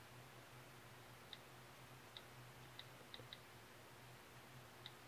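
Six faint computer mouse clicks, spaced irregularly, over a steady low hum in near silence.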